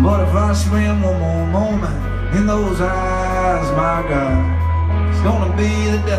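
Live alt-country band playing an instrumental passage: an electric guitar lead with bending notes over held bass notes, with drums and cymbals.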